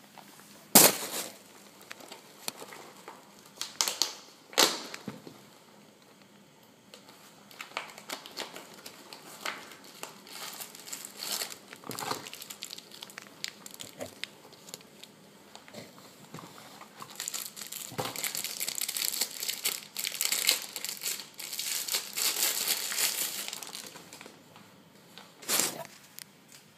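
Packaging being handled and opened, crinkling and rustling, most continuously in the second half. A few sharp knocks in the first five seconds and one near the end.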